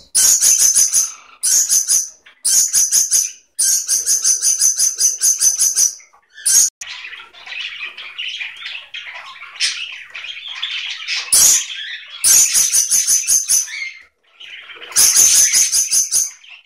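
Pet parakeets calling: runs of rapid, evenly repeated high chirps, each lasting a second or two, with a softer, lower warbling chatter between about seven and eleven seconds in.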